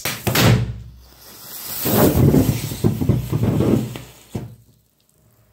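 Fully charged 18650 lithium-ion cell, shorted through damaged insulation, venting in thermal runaway. It starts with a sudden loud burst, then gives a hissing, crackling jet of sparks that swells and cuts off sharply about four and a half seconds in.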